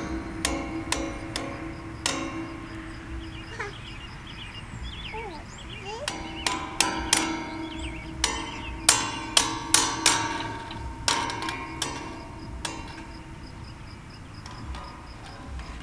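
Plastic toy hammer tapping on metal fence railings, each strike a sharp clink with a short ringing tail. A few taps come in the first two seconds, then a faster run of about a dozen from about six to thirteen seconds in.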